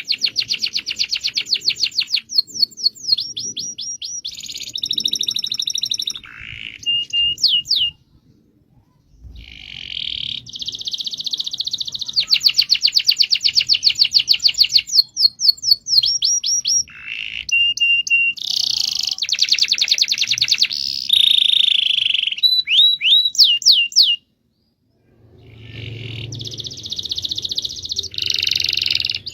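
Domestic canary singing a long rolling song of fast trills and repeated high phrases, one after another. The song breaks off briefly twice, about 8 and 24 seconds in, then resumes.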